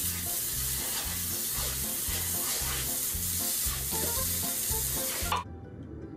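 Water spraying from a garden hose onto a wet concrete floor: a steady hiss that cuts off suddenly about five seconds in.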